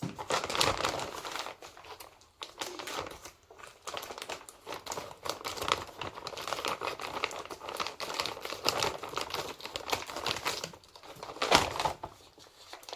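Grocery delivery packaging crinkling and rustling as a packet is opened and its contents are pulled out by hand, with irregular crackles and rustles throughout.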